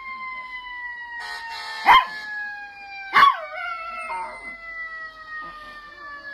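Fire truck siren wailing, its pitch sliding slowly down, while a dog howls along with it. The dog gives two short, loud yelping cries about two and three seconds in, then softer wavering howls.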